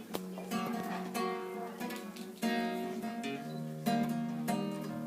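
Acoustic guitar strumming chords, each stroke ringing on as the next chord comes: the instrumental introduction to a song.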